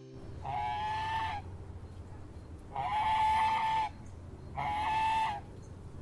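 Domestic goose honking three times, each honk about a second long and held on one steady pitch.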